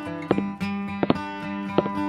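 Background music: a plucked guitar melody, its notes struck every half second or so.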